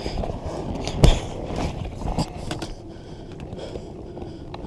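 Rubbing, scraping and knocking of an inflatable kayak's vinyl hull as the paddler shifts about in it among reeds and water plants, with one sharp knock about a second in and several smaller ones after it. The noise dies down to faint rubbing in the second half.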